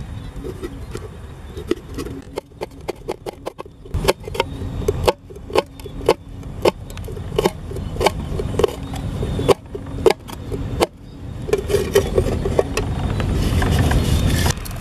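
A knife tapping and chopping on a hard plastic lid used as a cutting board: irregular sharp knocks, a few a second, over a low rumble, with the knocking stopping about eleven seconds in and a steady hiss rising near the end.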